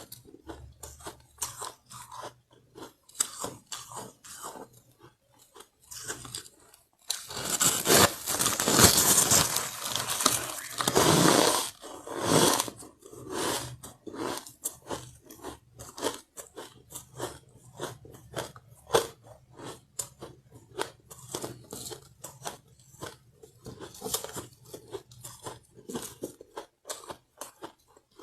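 Soft powdery ice being bitten and chewed: a steady run of crisp crunches, with a dense, louder spell of crunching about seven seconds in that lasts some five seconds before settling back into lighter chewing crunches.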